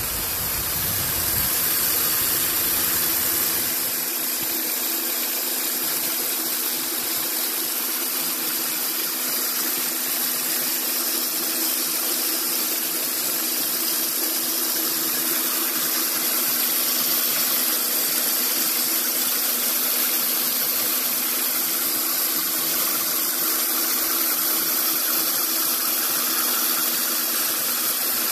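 2007 Jeep Grand Cherokee engine idling steadily, heard close to its spinning accessory-drive pulleys.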